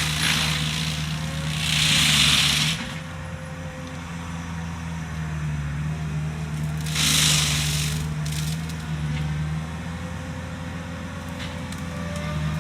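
A skid steer's engine runs steadily while its mulching drum works through brush. There are two louder bursts of hissing, shredding noise, about two seconds in and again about seven seconds in.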